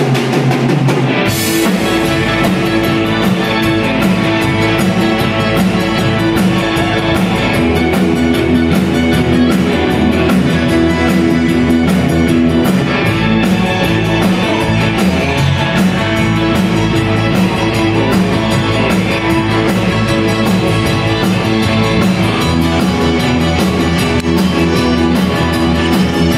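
Tex-Mex band playing live with button accordion, electric guitars, keyboard and drum kit. It comes in together at full volume at the start and keeps a steady beat in an instrumental passage.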